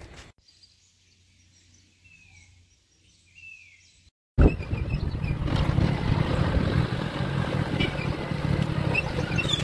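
A Hero Splendor motorcycle's single-cylinder four-stroke engine running steadily as it is ridden, with wind noise on the microphone; it cuts in suddenly a little over four seconds in. Before that, near silence with two short falling bird chirps.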